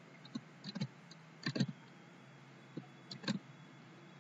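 Computer mouse and keyboard clicks, as a web link is copied, the browser tab switched and the link pasted. About five short, sharp clicks come at uneven intervals, several of them in quick pairs, over a faint steady hum.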